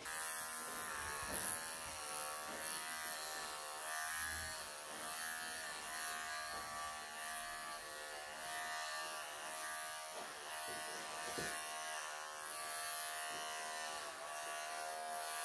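Electric pet clippers running with a steady buzz, dipping slightly in pitch now and then as the blade works through a Persian cat's thick, matted coat.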